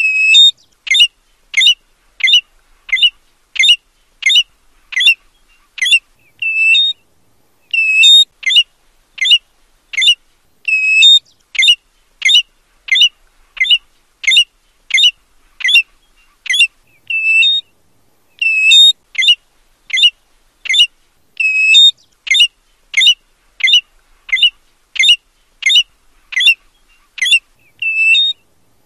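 American golden plover calling: a long series of short, clear whistled notes, each dropping in pitch, about two a second, with a longer, steadier whistle every few seconds.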